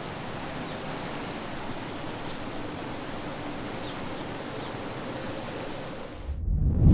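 A steady, even hiss of background noise; in the last second the high hiss drops away and a deep rumble swells up.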